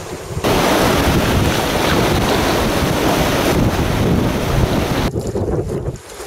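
Wind buffeting the microphone over the wash of the sea, loud from about half a second in and dropping away suddenly about a second before the end.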